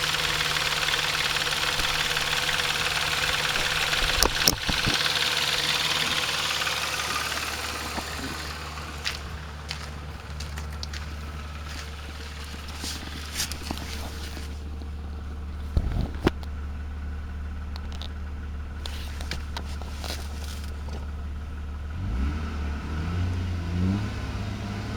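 Chrysler 2.7-litre V6 engine running with an abnormal mechanical noise from a timing chain tensioner that was not released correctly at installation. The noise is loudest over the first several seconds, then fades to a steadier low running hum, with a couple of sharp knocks.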